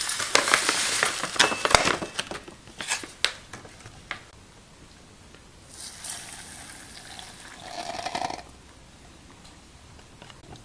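Dry instant potato flakes poured from a paper packet into a multi-cooker's nonstick inner pot: a hissing patter for about two seconds with crinkles and a few taps after. About six seconds in, water is poured from a plastic jug onto the flakes in the pot for about two and a half seconds.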